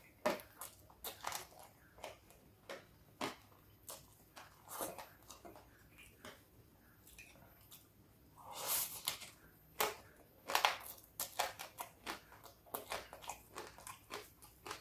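Chewing and crunching of mouthfuls of fried rice topped with crispy fried anchovies and a fresh green chili, with irregular crisp crackles. A louder, noisier mouthful comes a little past halfway, and the crackles come thicker after it.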